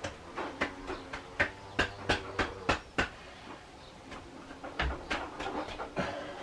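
Metal hand tool clicking and knocking against the motorcycle's fork top caps as they are turned loose, with a run of sharp clicks about three a second in the middle and a low thump later on.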